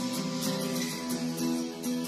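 Background music: a strummed guitar playing a steady rhythmic accompaniment.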